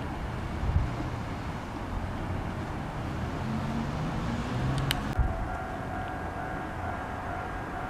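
Street traffic: a small car drives past close by about four seconds in, its engine hum rising and falling over a steady low rumble. A sharp click comes as it passes, and just after it a faint steady high tone sets in.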